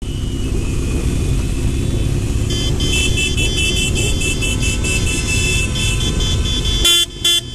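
Motorcycle under way, with its engine rumble and wind noise, while horns toot in support: from about two and a half seconds in a fast string of short high beeps, then two loud horn blasts near the end.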